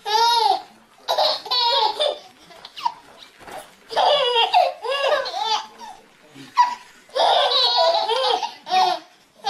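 Babies laughing: high-pitched belly laughs and giggles that come in repeated bursts a second or two apart.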